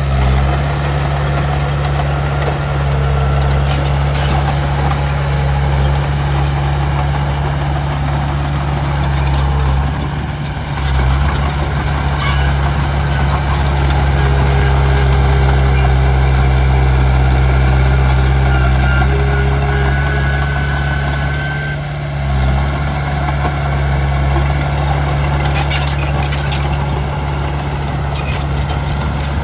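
Heavy diesel engine of earthmoving machinery running steadily, with a deep even drone that eases briefly twice.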